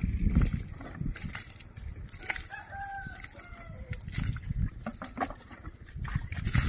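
A rooster crowing once, a drawn-out call of about two seconds in the middle, over irregular splashing of water poured from a scoop onto a cow and the wet ground.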